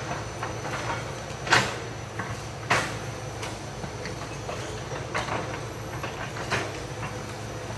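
Hitachi EX200 excavator's diesel engine running steadily at a distance, with four sharp knocks as it works among the trees, the loudest about one and a half and two and three-quarter seconds in.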